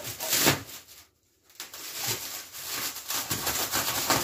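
Plastic stretch wrap crinkling and rustling as hands pull it off a cardboard box, a dense run of crackles broken by a brief gap about a second in.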